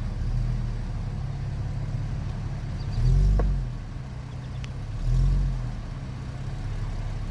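Car engine running at idle, swelling twice under light throttle, about three and about five seconds in.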